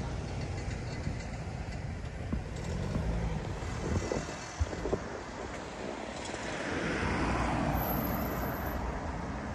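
Road vehicle noise: a steady low rumble with a few light knocks, and a rushing hiss that swells up about six and a half seconds in and eases off near the end.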